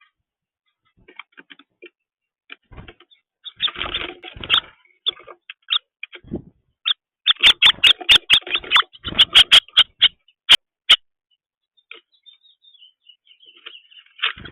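A small bird giving short, sharp chirps close by, scattered at first, then a fast run of about eight notes a second from about seven seconds in, fading to a few faint notes near the end.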